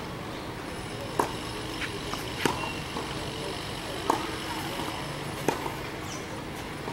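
Tennis balls struck by rackets in a baseline rally: four sharp pops about a second and a half apart, with a fainter knock between the first two.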